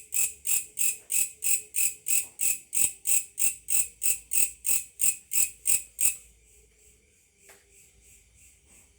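A grasshopper calling with a steady train of sharp, high chirps, about three a second, that stops suddenly about six seconds in. It sounds like a cricket, but the searcher finds it is a grasshopper.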